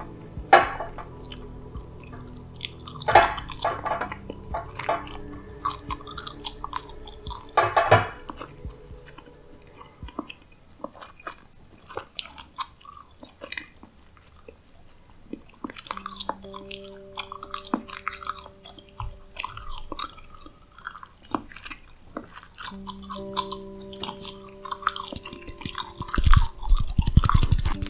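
Close-miked gum chewing, with irregular wet clicks and crackles, mixed with the taps of crystal stones being handled over a glass table. About sixteen seconds in, a soft sustained musical tone comes in, and a loud low rumble from the microphone being bumped or handled follows near the end.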